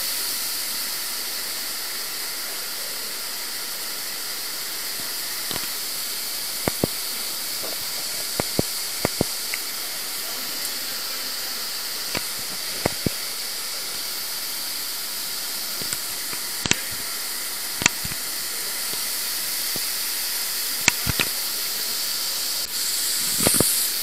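Steady rushing hiss of water running through the underground Neglinka river's brick collector, with scattered short sharp clicks and knocks and a brief louder burst near the end.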